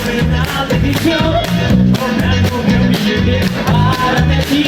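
Rockabilly band playing live, with a steady beat and a pulsing bass line.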